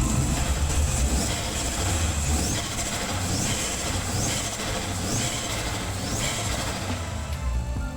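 Audi A3 1.8T 20V turbocharged four-cylinder engine running through a freshly fitted open dual-flow sport air filter: a dense rumble with short rising whistles about once a second.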